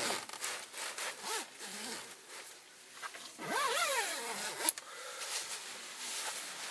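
A zipper pulled in quick strokes, with fabric rustling around it and a sharp click near the end of the zipping.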